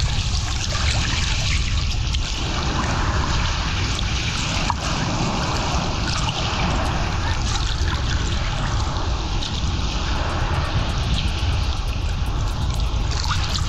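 Sea water sloshing and lapping close to a camera held at the surface of choppy water, over a steady wind rumble on the microphone.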